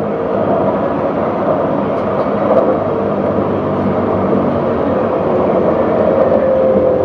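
CAF Urbos 3 electric tram running along its track, heard from inside the front of the car: a steady rolling rumble with the hum of its electric drive.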